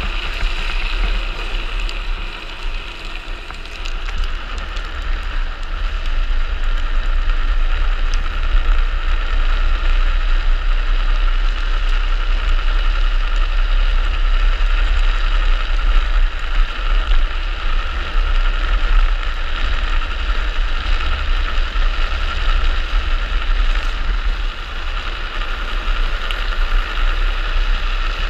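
Wind rushing and buffeting over a helmet-mounted camera's microphone as an unpowered speed trike runs downhill, with a steady rolling hum from its wheels on asphalt. It grows louder about five seconds in as speed picks up.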